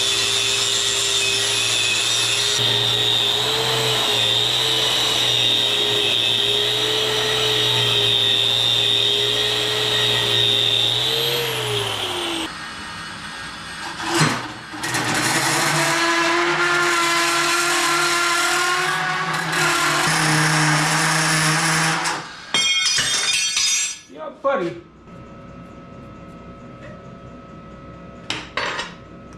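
Handheld electric power tool working on steel rebar in two runs: a steady whine for about eleven seconds that winds down as it stops, then a second run of about seven seconds. A short clatter follows.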